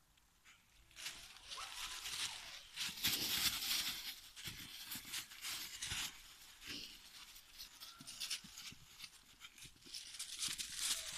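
Dry fallen leaves crunching and rustling under the paws of three Hungarian Vizsla puppies romping and tussling, in uneven spurts of louder and softer scuffling. The first second is quiet.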